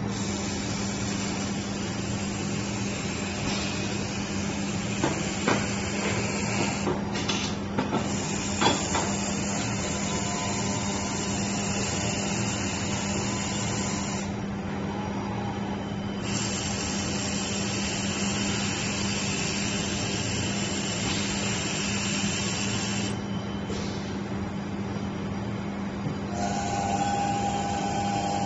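Robotic arc welding on car parts: a steady arc hiss and crackle over a constant low hum. The hiss drops out briefly several times as the arc stops between welds, and a few sharp clicks come about a quarter of the way in.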